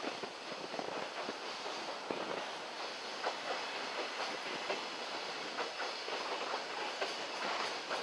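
Freight train's container flat wagons rolling past on the rails, a steady rumble with irregular wheel clicks and knocks.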